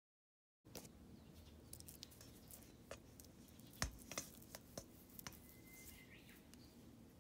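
Faint handling sounds of a hand smoothing oil over a ball of bread dough in a stainless steel bowl: quiet rubbing with scattered light clicks and taps against the bowl, the clearest about four seconds in.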